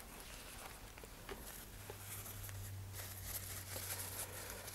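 Faint handling noises as a model rocket's body sections and shock cords are moved about by hand: scattered light taps and rustles. A low steady hum comes in about two seconds in.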